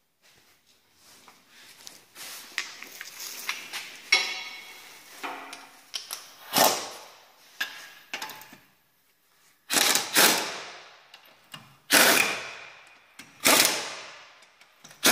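Workshop tool noise: scattered metallic clicks and clanks, then several loud short bursts about one and a half to two seconds apart, each under a second long.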